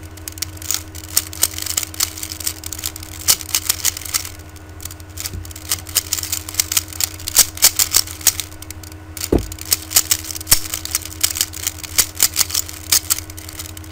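Rubik's speed cube being turned rapidly by hand: quick irregular runs of plastic clicks and clacks as the layers snap round during the final moves of a solve. A steady low electrical hum sits underneath.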